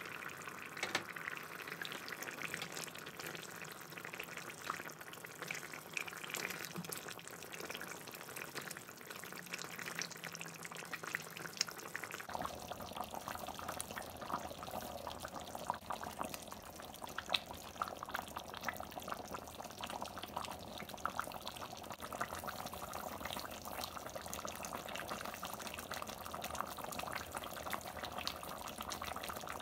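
Thick chicken curry boiling in a pot, bubbling with many small pops while a spoon stirs through it. The bubbling shifts lower in pitch about twelve seconds in.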